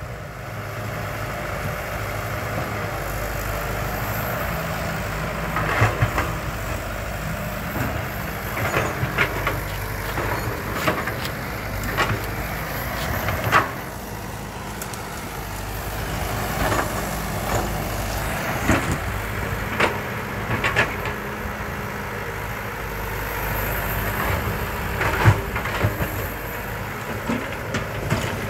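Caterpillar E120B hydraulic excavator's diesel engine running, its level swelling and easing as the machine works. Irregular sharp cracks and knocks sound over it throughout, the loudest about 25 seconds in.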